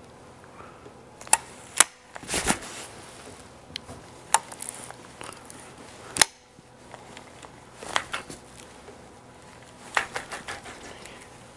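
Scattered sharp clicks and knocks of fishing tackle being worked from a bass boat's front deck, with a short rushing burst a little after two seconds in, over a faint steady hum.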